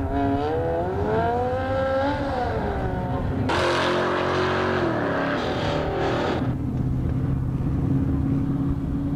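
Drag car accelerating down the strip in the distance, its engine pitch climbing, dropping at a gear change and climbing again. Then a loud close-up engine rev with a rush of noise for about three seconds, followed by cars idling steadily at the start line.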